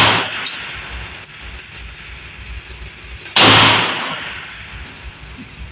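A single .357 SIG pistol shot from a Glock 31 Gen 4 about three and a half seconds in, sharp and followed by a ringing decay of about a second. At the start, the echo of a previous shot is still fading.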